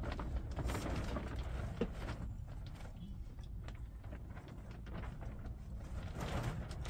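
Scattered small clicks and scratches from hands peeling the skins off boiled potatoes, over a steady low rumble.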